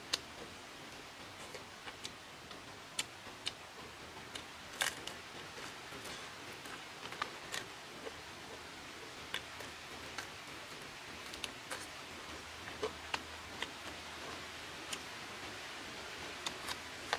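Scattered sharp little clicks and smacks of someone eating chicken by hand, tearing meat off the bone and chewing, at irregular intervals over a steady faint background hiss.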